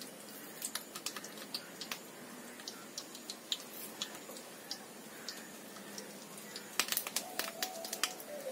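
Knife chopping garlic on a cutting board: scattered clicks and taps, with a quicker run of chops about seven seconds in.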